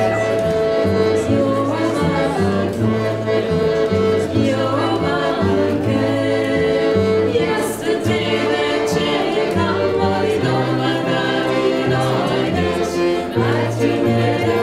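Southeast European folk music from a small ensemble: voices singing together over fiddle, with a low bass line moving in steps.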